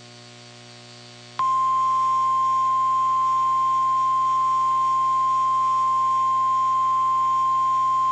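Emergency weather alert tone, the single-pitch NOAA Weather Radio warning alarm, starting suddenly about a second and a half in and holding one steady, loud, high beep, after a faint hum.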